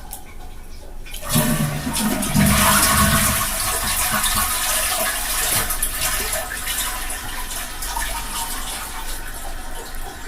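Toilet flushing: a sudden rush of water starts about a second in, then slowly tapers off.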